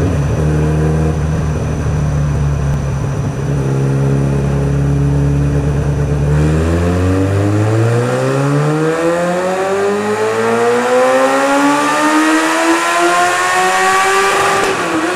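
Yamaha sports bike engine on a rolling-road dyno, running through an aftermarket exhaust. It holds steady revs for about six seconds, then climbs smoothly under full load for about eight seconds in a dyno power run. Near the end the throttle shuts and the revs drop sharply.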